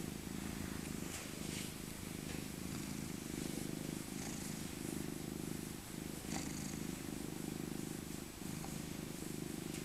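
Old tabby cat purring steadily while being stroked, the low purr breaking off briefly every few seconds.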